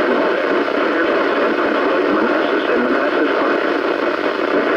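Weak NOAA Weather Radio signal through a radio receiver: loud, steady static hiss with the automated voice reading the winter storm warning faint and buried beneath it.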